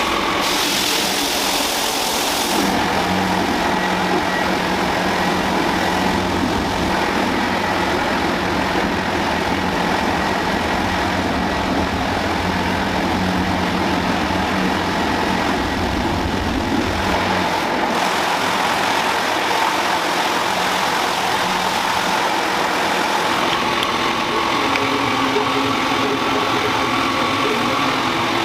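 Ice cream factory machinery running: a steady mechanical hum and whir with faint steady tones, changing character a few times.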